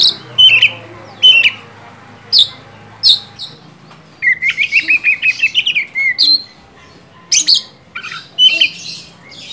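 Caged Oriental magpie-robin in full, vigorous song: loud, sharp whistled notes, then a fast run of about a dozen repeated notes, some seven a second, from about four seconds in, followed by more loud whistles.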